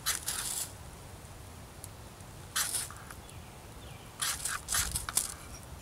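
A knife blade scraped hard down a firesteel (ferrocerium rod), several quick rasping strikes in bursts: one pair at the start, one about halfway, then a quick run of four or five strikes near the end, throwing sparks into a pile of wood shavings to light a fire.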